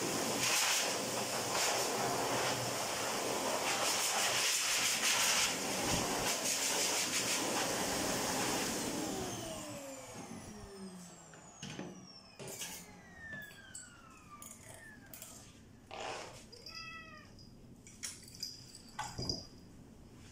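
Pet grooming dryer blowing air through its hose, then switched off about nine seconds in, its motor whine falling in pitch as it spins down. A few light knocks follow, and the cat gives one short meow a few seconds before the end.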